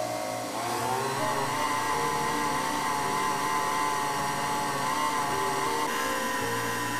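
Electric countertop blender running with a full plastic jar of liquid pudding batter, switching on abruptly and then holding a steady motor whine over the churning liquid.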